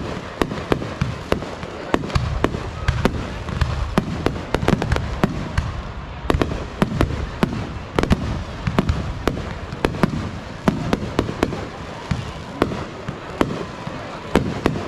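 Aerial fireworks going off: rapid, dense cracks and bangs, several a second and often in quick clusters, over a continuous low booming rumble.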